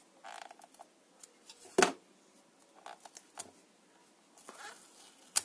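Small clicks and faint scraping of a utility knife blade cutting the glued seal of a small plastic earphone case. A sharp click about two seconds in and another just before the end.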